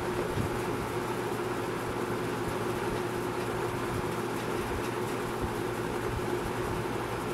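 1987 Toastmaster model 4435D 20-inch box fan running steadily: an even rush of moving air with a constant motor hum.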